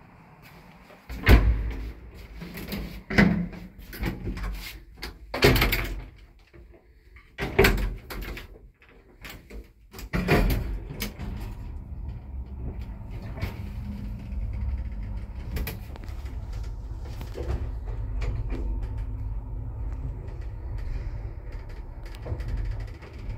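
Door bangs and clatters of an old IFMA traction lift as its doors are worked, about six sharp knocks over the first ten seconds. About ten seconds in the car sets off and runs with a steady low rumble and hum, with occasional light clicks.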